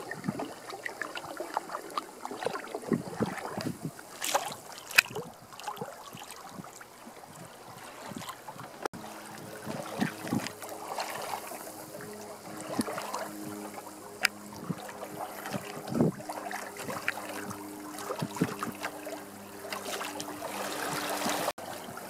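Water splashing and lapping irregularly against a sailing canoe's hull as it moves through choppy water, with wind buffeting the microphone.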